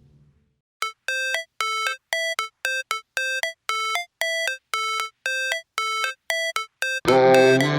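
Background music: a sparse run of short, evenly spaced electronic notes, then the full track with heavy bass comes in near the end.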